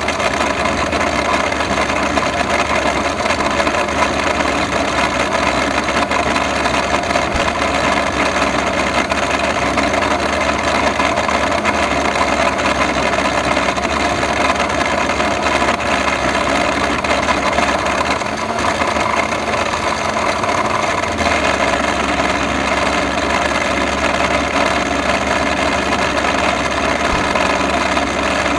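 Electrolux vacuum cleaner's bad motor running steadily, with a brief dip in its low hum about two-thirds of the way through before it picks up again.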